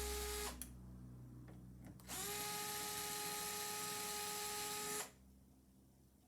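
Cordless screwdriver motor whining in two runs as it drives out screws. The first run stops about half a second in. The second starts about two seconds in, rises quickly to a steady pitch and cuts off about five seconds in.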